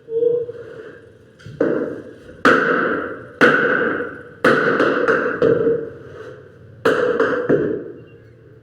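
Hammer blows on wood, about six strikes at uneven intervals of roughly a second, each ringing briefly as it fades.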